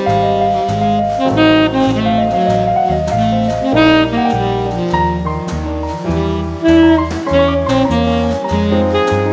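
Jazz backing music: a saxophone melody over drums and a bass line that steps about two notes a second.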